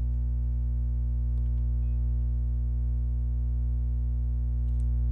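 Steady low electrical hum with evenly spaced overtones, the kind of mains hum picked up on a recording line. A few faint clicks come about a second and a half in and again near the end.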